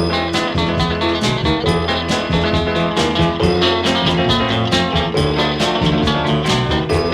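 Instrumental passage of a 1967 folk-rock single played from a mono 45 record: guitar over a steady drum beat, without vocals.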